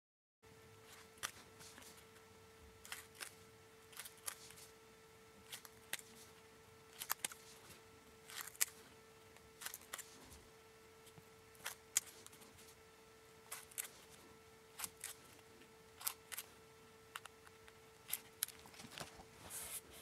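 Small ordinary scissors making many quick snips through folded origami paper, cutting a fine zigzag edge: short, sharp clicks at an irregular pace of about one or two a second.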